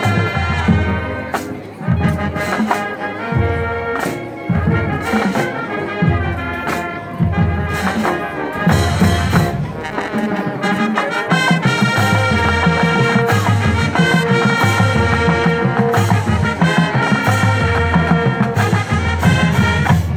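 High school marching band playing: brass, with sousaphones among them, carries the tune over a heavy, regular low beat.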